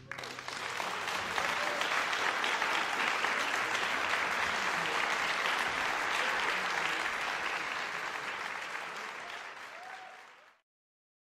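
Audience applauding, a dense steady clapping that tapers off and then cuts out abruptly about ten and a half seconds in.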